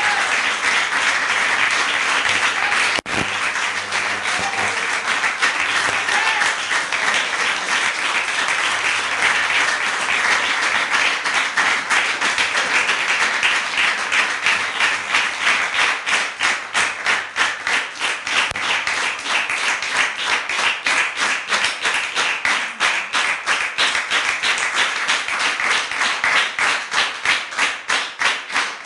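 An audience applauds, at first in a dense mixed patter. About halfway through the clapping falls into unison, a steady rhythm of about three claps a second, as the audience calls the performers back for an encore.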